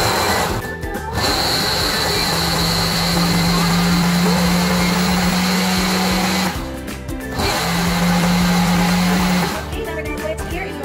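Countertop blender running in pulses while it purees watermelon and banana: a steady motor hum with a high whine. It cuts out briefly about a second in and again around two-thirds of the way through, then stops near the end.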